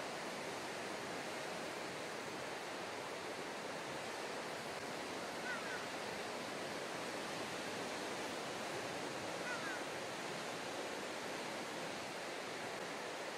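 Steady wash of sea water and wind, an even noise with no rhythm. Two brief faint chirps stand out about four seconds apart.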